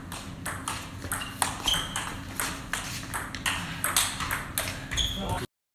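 Table tennis rally: the ball clicking off the rackets and the table in quick succession, several hits a second, some with a short ringing ping. The sound cuts off abruptly near the end.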